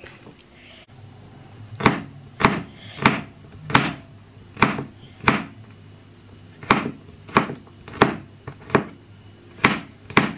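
Chef's knife chopping crushed garlic on a wooden cutting board: about a dozen sharp knocks, roughly one and a half a second, with a short pause about six seconds in.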